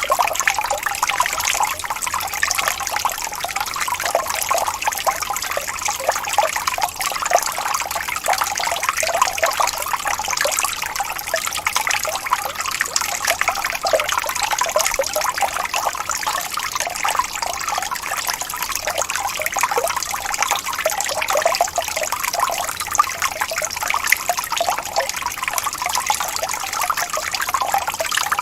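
Small waterfall splashing and trickling steadily over rocks, a continuous, even rush of falling water.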